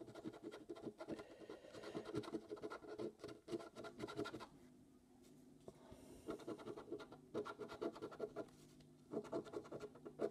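Edge of a coin scraping the scratch-off coating from a lottery scratchcard in quick, rapid strokes. It comes in three spells with short pauses between.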